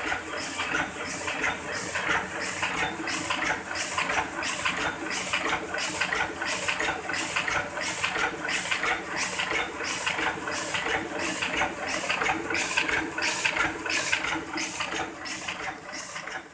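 Heidelberg GTO two-colour sheet-fed offset press running a print job, feeding paper sheet after sheet in a steady rhythmic clatter of about two to three strokes a second, over a steady mechanical hum.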